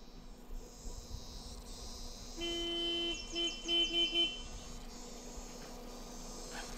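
Vehicle horn: one long honk, then four short toots in quick succession, about two and a half seconds in. Insects buzz steadily throughout.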